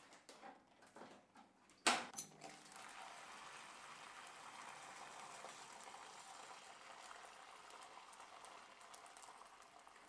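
A sharp metal clack about two seconds in, then a steady rush of hot apple juice pouring through a bag-in-box filler nozzle into a foil pouch.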